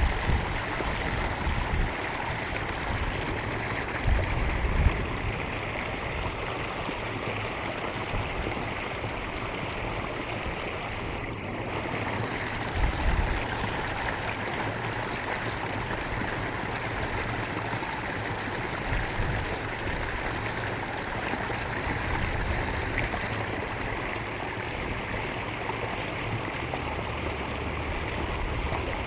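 Water babbling steadily along a rice-paddy irrigation channel, with a few brief low rumbles now and then.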